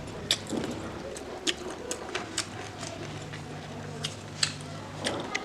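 A person eating noodles and fried chicken close to the microphone: chewing, with sharp wet mouth clicks and smacks coming every half second to a second, over a steady low hum.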